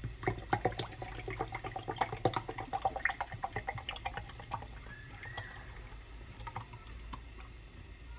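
Liquid settling and dripping in a plastic tumbler just filled with milk: a rapid run of small clicks and drips with a faint ringing, thinning out after about four and a half seconds.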